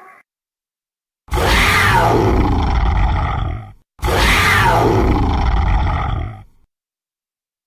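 Dinosaur roar sound effect played twice: two matching long roars of about two and a half seconds each, falling in pitch over a deep rumble, with a short gap between them.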